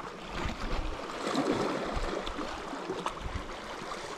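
Sea water washing against shoreline rocks, a steady rushing noise, with a few faint clicks.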